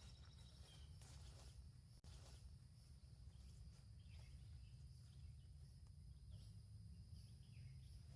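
Near silence: faint outdoor ambience with a steady high-pitched insect drone and a few faint, distant bird chirps.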